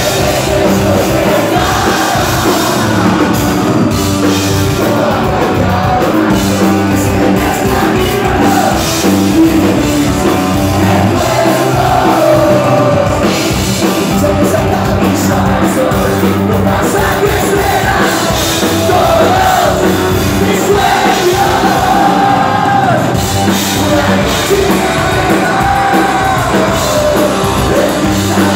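A rock band playing live, with electric guitars, bass and drums under a lead singer, heard from within the crowd.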